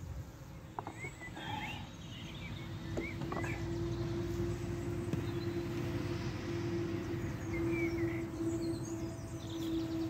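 Honeybees from a swarm buzzing around an open hive: a steady hum that comes in about three seconds in and holds. Small birds chirp now and then.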